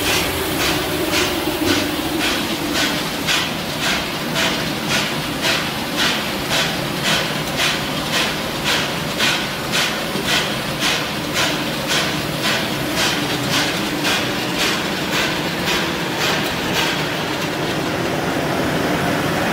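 Continuous peanut roasting machine running: a steady mechanical hum with a regular knocking about twice a second, which fades away near the end.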